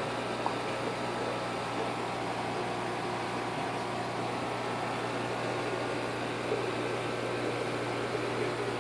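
Running aquarium equipment: a steady low hum with a constant hiss.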